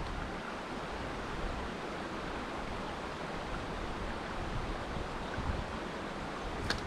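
Steady rushing of creek water spilling over a small dam, an even noise with no break, with one brief sharp click near the end.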